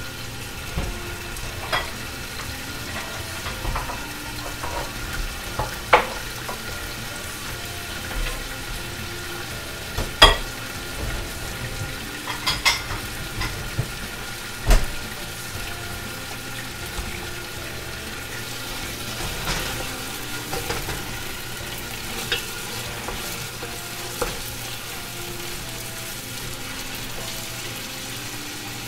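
Chicken pieces and garlic sizzling steadily in hot oil in a pot, with scattered sharp knocks of a wooden spoon against the pot as they are stirred.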